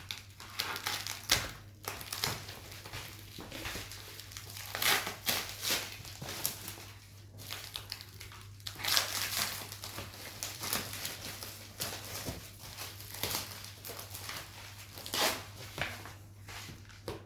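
Plastic packaging crinkling and rustling in irregular bursts as it is handled and pulled away from the vacuum cleaner's parts, over a steady low hum.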